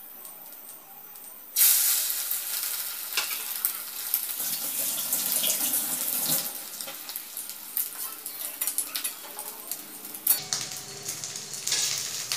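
Egg-coated bread slice shallow-frying in a little oil in an aluminium kadai: a loud sizzle starts suddenly about a second and a half in, as a new slice goes into the oil, and keeps on, with scattered clicks of a metal spatula against the pan.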